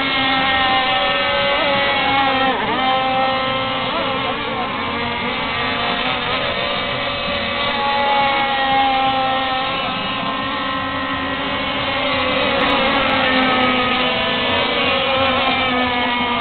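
Several mono-hull RC racing powerboats running flat out together, their small engines whining at high revs in overlapping pitches that rise and fall as the boats pass and turn.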